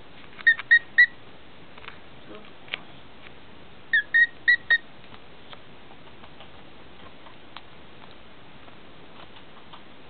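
Male cockatiel whistling its song in short, clear notes: three quick ones about half a second in, then four more about four seconds in.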